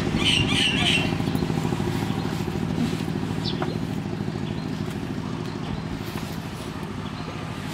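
An engine running nearby with a steady low hum that slowly fades away. A few faint high chirps come in the first second.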